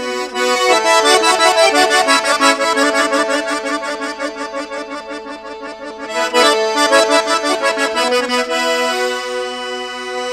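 Accordion playing an instrumental break in a Georgian folk song: quick runs of notes over held chords, softer in the middle and louder again about six seconds in.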